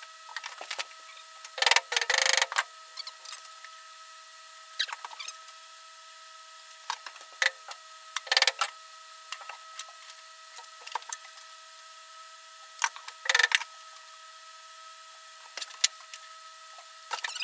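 Sporadic clatters and scrapes of hand tools against the bare steel of a car shell, including a steel tape measure being pulled out and reeled back, over a steady high hum. The biggest clatter comes about two seconds in.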